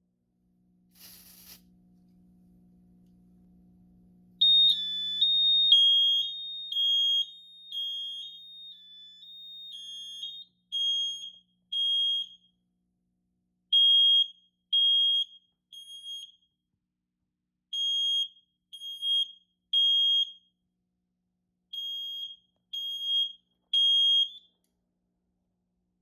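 A click, then a fire alarm horn starts sounding a high, wavering tone that settles into short beeps in groups of three with a pause between groups, the temporal-three evacuation pattern, before stopping near the end.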